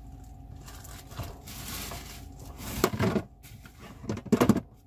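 Handling noise: a few light knocks and rustles, loudest about three seconds in and again just before the end, as a packaged frozen meal and other items are handled. A faint steady hum runs underneath.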